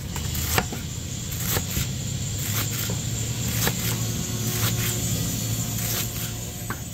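An engine running steadily with a low hum, with scattered sharp clicks and knocks over it.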